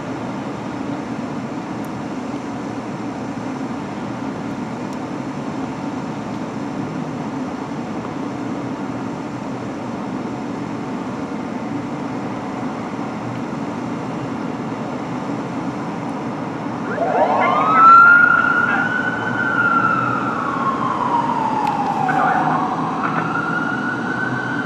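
A steady low rumble, then a 1991 Duplex D500 fire engine's siren starts wailing about two-thirds of the way in: its pitch rises quickly, falls slowly and rises again as the engine responds.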